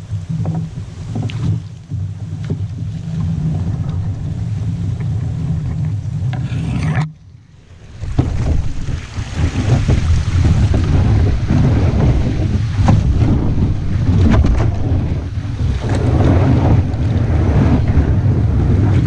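Plastic kayak being dragged up a shallow creek by a wading person: water splashing and sloshing around the hull and legs over a heavy low rumble. The sound drops out briefly about seven seconds in.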